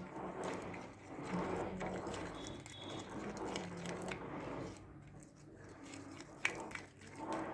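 Hands mixing and kneading homemade glue slime thickened with Boroline cream, a soft squishing and rubbing that goes on for about five seconds and then eases, with a couple of sharp clicks near the end.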